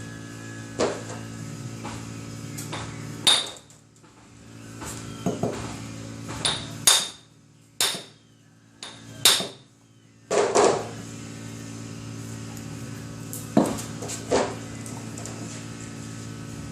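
Hammer blows driving a CV joint onto the splined end of a UTV axle shaft: about nine sharp metallic strikes at uneven intervals, some in quick pairs.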